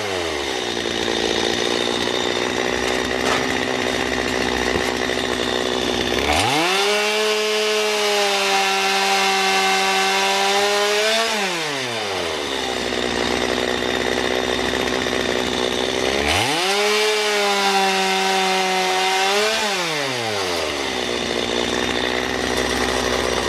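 Gasoline chainsaw running at full throttle while cutting firewood logs. Its engine pitch sags and roughens under load in the cut, then climbs and holds high when the chain runs free. This happens twice.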